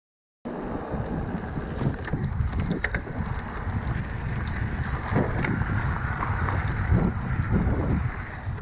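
Wind buffeting an action camera's microphone while a Cannondale Moterra 2 electric mountain bike rides a rough track, its tyres rolling over loose stones with scattered small clicks and rattles from the bike. It starts abruptly under a second in.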